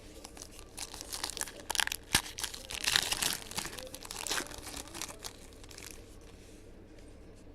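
Plastic wrapper of a trading-card pack being torn open and crinkled, a dense run of crackling lasting a few seconds that is loudest in the middle and then dies away.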